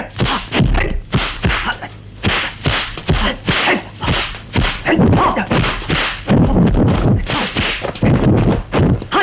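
Rapid series of dubbed kung fu film fight sound effects: punch-and-block whacks and swishing strikes, several a second, exchanged back and forth.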